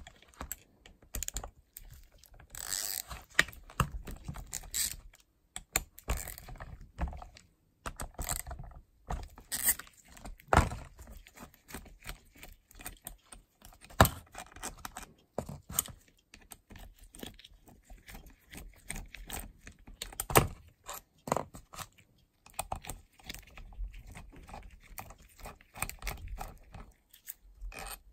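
Three bolts being unscrewed from an ATV water pump cover with a hand bit driver: scattered small clicks, metal clinks and handling knocks at an uneven pace as the tool turns and the bolts are lifted out and set down.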